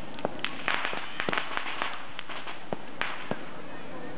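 Aerial firework shells bursting in a rapid, irregular string of bangs and crackles. They come thickest in the first two seconds and thin out to a few single cracks near the end.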